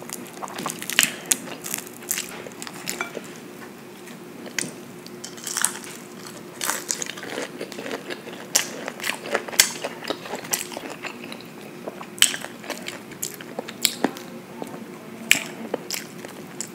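Close-miked eating of crispy breaded fried fillets with fried rice: irregular biting crunches and chewing clicks at the microphone.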